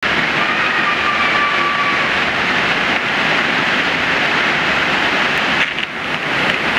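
Waterfall pouring off a layered rock ledge into a shallow pool: a loud, steady rush of falling water that dips briefly near the end.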